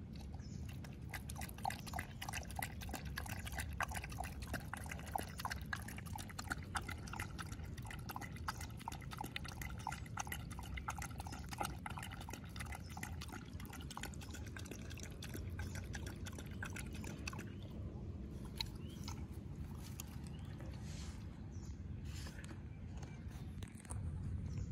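Dog lapping water from a plastic bowl: a quick, steady run of wet laps that thins out to only a few about two-thirds of the way through.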